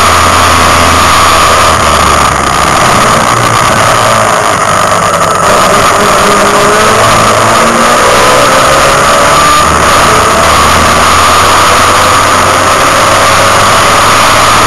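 Mazda Capella race car's engine at racing speed, heard from inside the cabin, loud throughout. Its pitch climbs steadily in the middle as it pulls through a gear, after short dips in level about two and about four seconds in.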